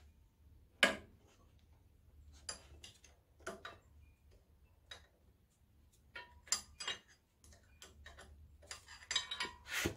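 Irregular metallic clicks and taps from hand work on the Type L magneto of an antique IHC Type M engine, over a low steady hum. The loudest click comes about a second in, and a quick cluster of clicks comes near the end.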